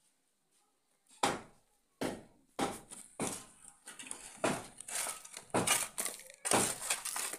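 A metal shovel scraping and dumping soil and stones into a trench over electrical conduit pipes: a run of gritty scrapes and thuds, roughly one every half second to second, starting about a second in.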